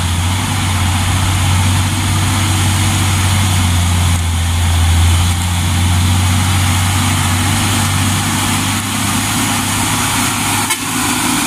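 Diesel engine of a Mitsubishi Fuso dump truck pulling up a grade, a steady low drone that grows a little louder about halfway through as the truck comes close.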